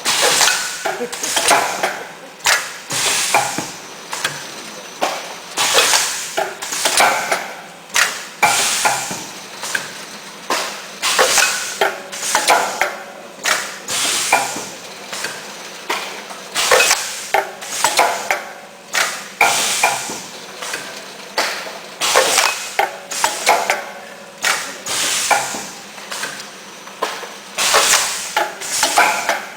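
Automatic tofu packaging machine running, with a steady repeating clatter of mechanical knocks and clicks.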